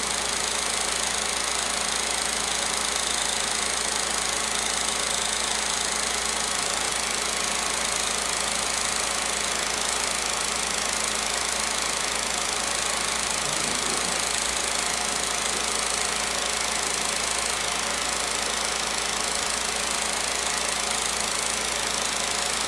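A 16mm film projector running: a steady mechanical whir that does not change.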